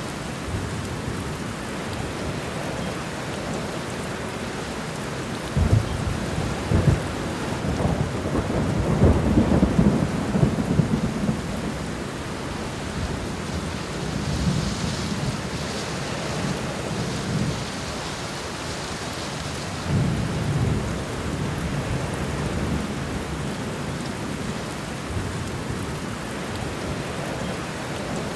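Steady rain falling during a thunderstorm, with rolling thunder. A rumble starts suddenly about five seconds in and builds into a long roll over the next several seconds, and a second rumble comes about twenty seconds in.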